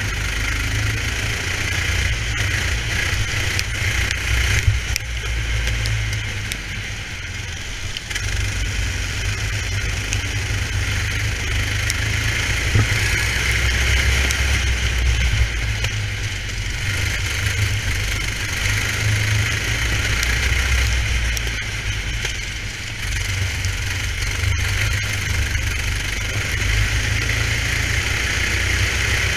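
Racing kart engine running at speed, heard from a camera mounted on the kart, with a heavy low rumble underneath and small dips in level as the driver lifts and accelerates again.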